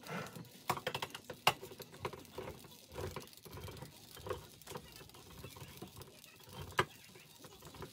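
Irregular light clicks, taps and rustles of small kitchen items being handled on a countertop, with a few sharper clicks about a second and a half in and near the end.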